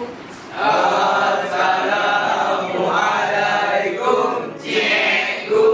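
A group of male voices chanting together in unison, with a short break about four and a half seconds in.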